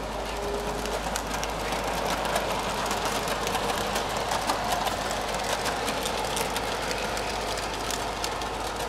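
Electric model train running on its track: a steady rolling rumble of the wheels and motor, dotted with many small clicks.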